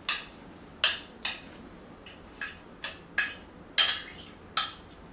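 A utensil clinking and scraping against a glass measuring cup as cooked ground beef is scraped out into a bowl: about a dozen short, uneven strikes.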